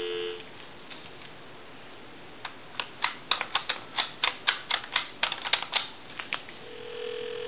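The dial tone on the line cuts off. Then the push-buttons of the original Mickey Mouse touch-tone telephone click in a quick, uneven run as a phone number is keyed in. Near the end a steady ringing tone starts on the line as the call goes through.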